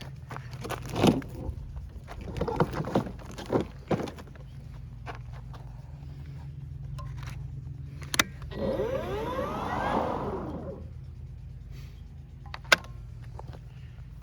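Ego battery mower handled with clicks and knocks, then its electric motor briefly whirs up and winds back down about two seconds later instead of running on. The owner puts this down to a battery he thought he had charged but hadn't.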